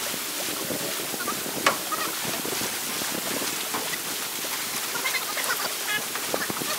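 Lake water lapping and wind on the microphone as a steady wash of noise, with one sharp knock about a second and a half in and a few short, high squeaks near the end.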